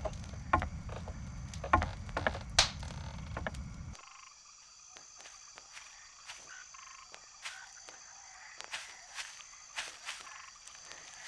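A low rumble with cloth rustling and knocks, which cuts off about four seconds in. Then a quiet outdoor stretch of faint, scattered footsteps on fallen leaves over a thin, steady high hiss.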